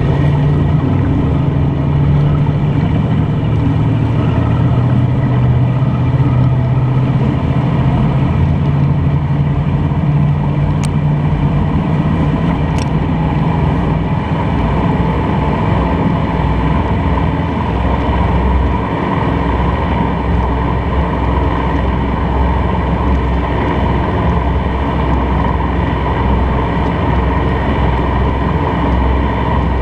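Silverton motor yacht under way: a steady engine drone under water rushing and splashing along the hull.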